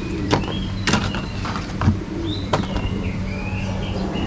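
Small birds chirping in short, gliding calls over a steady low hum, with a few sharp knocks and clicks.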